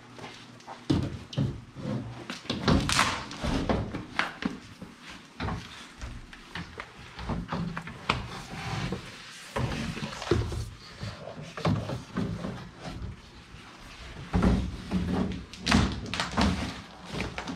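Irregular thumps, knocks and rustling from someone moving about and working in a cramped under-stairs closet while handling a coil of electrical cable, with the heaviest knocks a few seconds in and again near the end.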